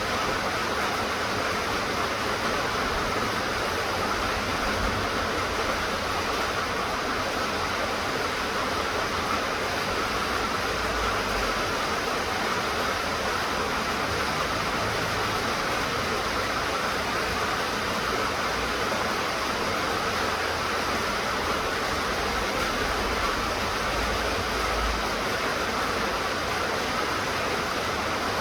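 Steady rain falling: a continuous even hiss without breaks, with brief low rumbles now and then.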